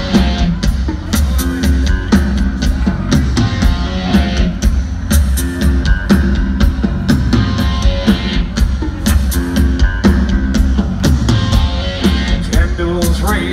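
Live rock band playing a song intro: a steady, driving drum beat with guitar and bass, loud and full.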